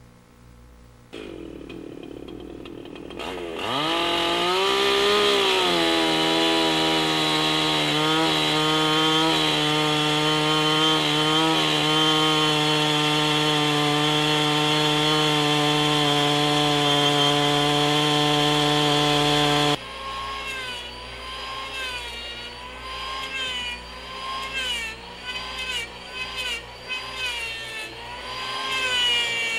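Chainsaw revving up a few seconds in and running steadily at high speed as it cuts into a log, then cutting off suddenly. An electric hand planer follows, its whine dipping in pitch again and again as it shaves the log's surface.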